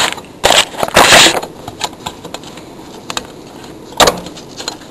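Close handling noise on a workbench: a few scrapes and knocks, the loudest a scrape about a second in and a sharp knock near four seconds, with small clicks between.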